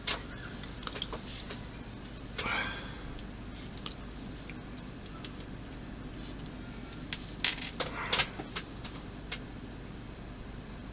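Small clicks and taps of small model kit parts being handled and fitted, with a short scrape and a brief high squeak.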